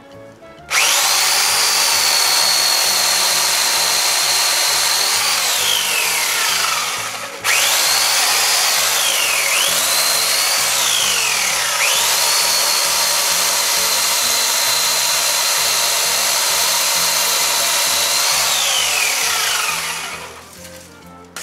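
Toshiba corded electric chainsaw running with a high motor whine. The pitch sags each time the chain bogs down cutting into shrub stems. It is released and restarted at once about seven seconds in, and winds down near the end.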